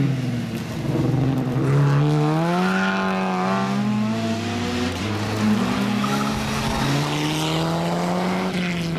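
Rally car engines accelerating hard at full throttle. The pitch climbs steeply, drops once about halfway through, then climbs again.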